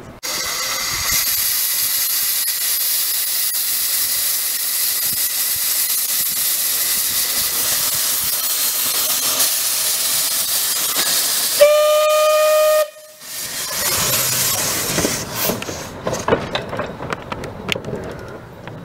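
Steam locomotive Dolgoch, an 1866 Fletcher Jennings tank engine, hissing steam loudly and steadily, then one short whistle blast about twelve seconds in. The hiss then cuts off and the engine moves away, with uneven puffing and clanking.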